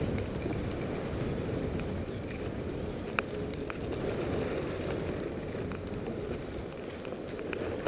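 Steady wind rushing over the camera microphone while skiing downhill in falling snow, with a few faint ticks.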